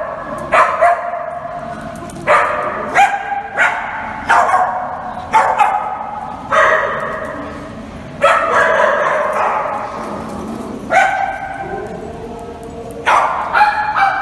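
Small dogs barking and yipping, a sharp high bark every second or two, about a dozen in all, with one drawn-out bark a little past the middle.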